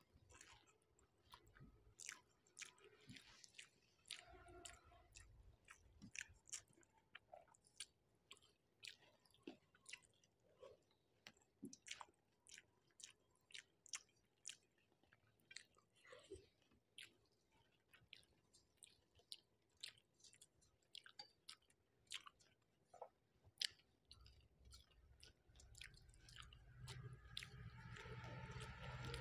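Close-miked chewing and wet mouth sounds of a person eating rice with fish curry: soft smacks and sharp little clicks, faint overall. Near the end a low hum rises underneath.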